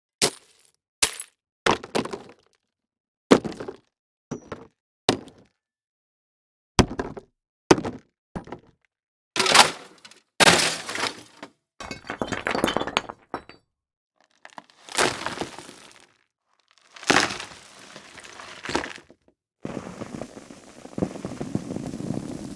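A run of separate library impact sound effects, one after another with silent gaps between them. Short, sharp single hits come first, then longer impacts whose noisy tails die away over a second or two, and a longer, lower noisy crash near the end.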